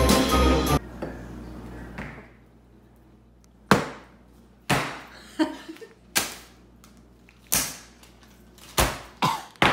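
Brief music that stops under a second in, then a string of separate knocks as kitchen ingredients (a salt canister, a bag of flour) are set down one at a time on a hard countertop, about eight in all.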